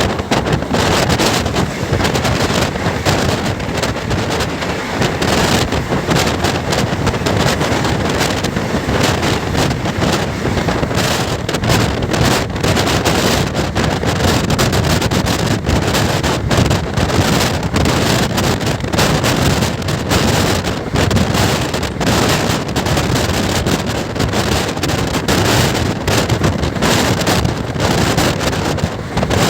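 Express passenger train running at speed: a steady rumble and rattle of the moving coaches, with heavy wind buffeting on the microphone.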